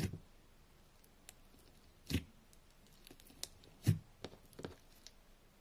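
Clear-based glitter slime in a jar being poked and pressed with a finger, giving several short wet pops and clicks of trapped air, the loudest about two seconds in and again about four seconds in.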